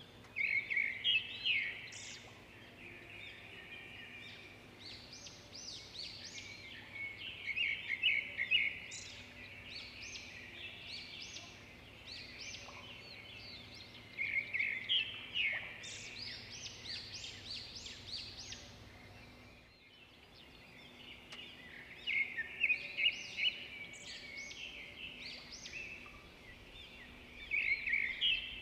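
Birds singing: bursts of bright, rapid chirping phrases every few seconds, with a brief break about twenty seconds in.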